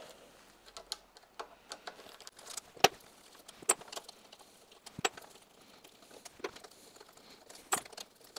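Scattered light metallic clicks and clinks, about seven over the several seconds and the sharpest about three seconds in, as the already-loosened valve cover bolts of a golf cart engine are spun out by hand and lifted off.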